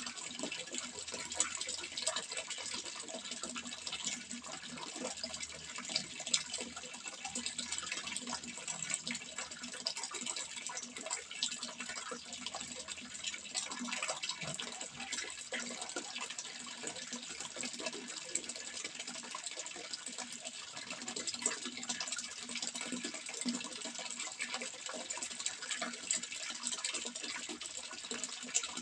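Water flowing and splashing steadily, a dense continuous patter of small droplets and trickles.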